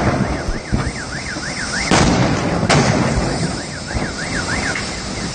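Explosions from burning vehicles: two sharp blasts about two seconds in and a little after, over the continuous noise of the fire. A car alarm warbles rapidly up and down throughout.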